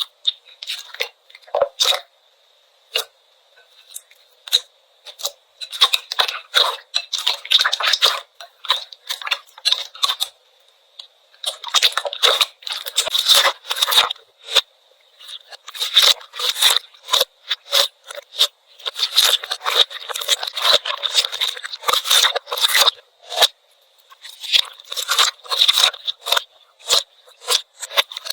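Slime being squeezed, poked and stretched by hand, giving rapid crackling and popping clicks that come in bursts with short pauses between them.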